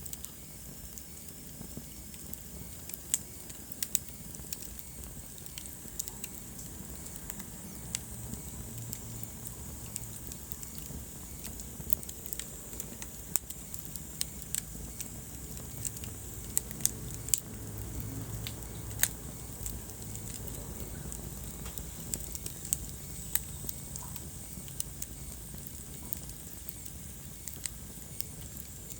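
Wood fire burning in a fireplace: irregular sharp crackles and pops, a few of them much louder, over a low steady rumble of the flames.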